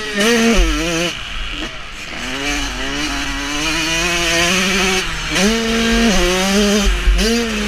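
Motocross dirt bike engine racing, its pitch climbing, holding and dropping several times as the rider gets on and off the throttle, with wind rushing over the microphone.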